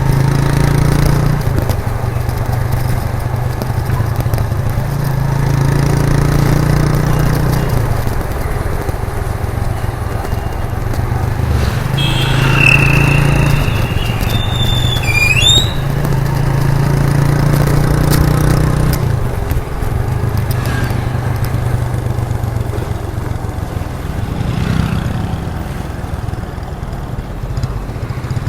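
1998 Suzuki GN125's single-cylinder four-stroke engine and exhaust running while riding, the engine note swelling and easing every few seconds with the throttle. About halfway through, a brief high-pitched tone sounds twice, the second wavering in pitch.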